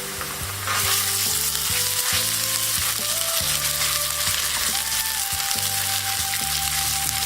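Ginger-garlic paste sizzling in hot oil with fried onions in a pan, the sizzle jumping louder about a second in and then holding steady.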